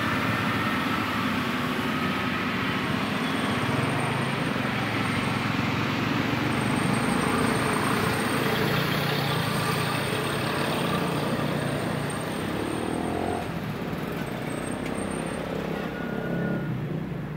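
Road traffic: cars driving past on a paved road, a steady rumble of engines and tyres that eases a little near the end.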